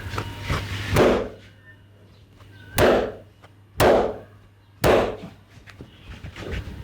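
Hands slapping the body in massage strokes: four loud smacks, the first two almost two seconds apart and the rest about a second apart.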